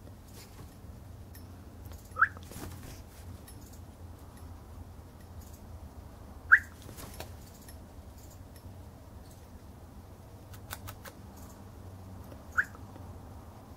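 Cockatiel giving three short rising whistled calls, a few seconds apart; the middle one is the loudest.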